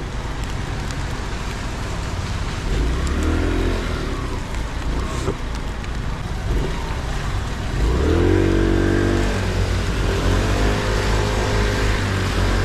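Aprilia SXR 50 scooter's small engine pulling away and accelerating, its pitch rising about three seconds in and again, louder, about eight seconds in. A steady hiss of rain and wind runs under it.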